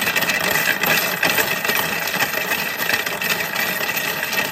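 A Ttolttoli mini washing machine running a load of coins, with a loud, steady metallic clatter and rattle of coins churning in the tub over the machine's motor.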